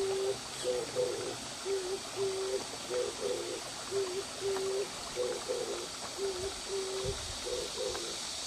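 A bird cooing: a low phrase of a few soft notes repeated steadily about every two seconds, over a faint trickle of water.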